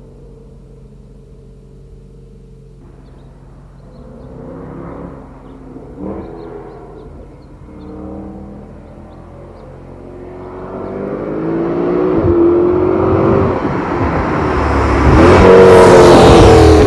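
Mercedes-Benz W204 C63 AMG V8 with a Renntech secondary-cat-delete and X-pipe exhaust: idling, blipped a few times, then launched hard with the engine note climbing through the revs. It is loudest near the end.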